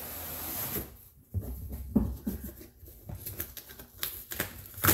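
Cardboard mailing boxes being handled: a sliding rub, then scattered knocks and taps, with a sharper knock near the end.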